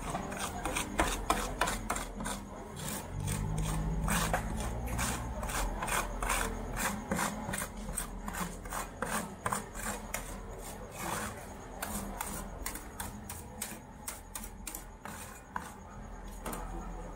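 Metal spatulas scraping and tapping across a frozen stainless-steel cold plate, spreading and smoothing a thin sheet of rolled ice cream studded with crispy fried durian. Quick, repeated scraping strokes, several a second.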